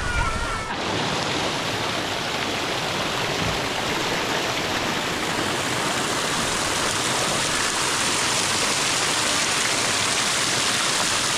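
Rushing water, a steady even hiss, cutting in abruptly under a second in and holding level after that.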